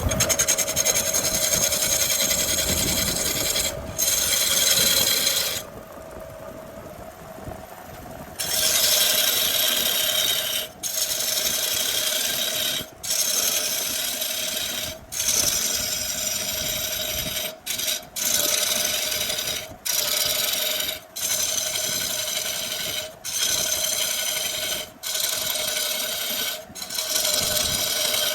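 Wood lathe running with a steady hum while a turning tool cuts into the spinning wood, a harsh scraping cut broken by short gaps each time the tool lifts off. About six seconds in the cutting stops for a couple of seconds and only the lathe's hum is left.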